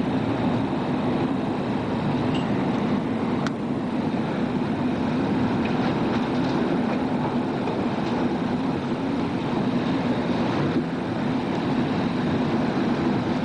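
A tornado's wind roaring at close range: a loud, steady, unbroken rumble with no let-up.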